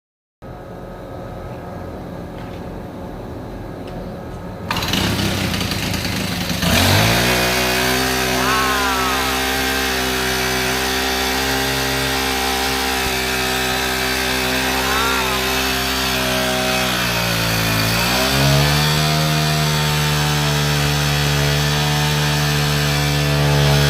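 Small lawn mower engine catching after a few seconds of lower mechanical noise, then running steadily. Near the end its speed sags briefly and picks back up.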